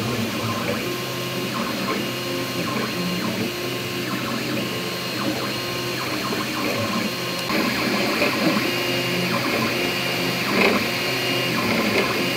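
Anet A8 3D printer running a print: its stepper motors sound short tones that jump in pitch as the print head changes moves, over the steady hum of its fans. It gets a little louder about halfway through.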